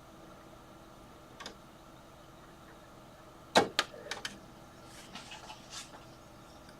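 Faint steady hum of computer fans, an Arctic F14 140 mm case fan turning slowly at 40% speed, super quiet. A few sharp clicks and knocks come about halfway through.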